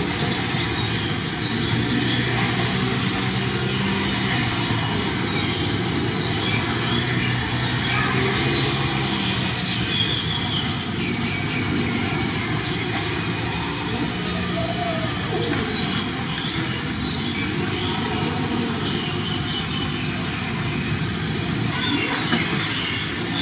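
Steady low hum and noise of a running motor, with a few faint high chirps over it.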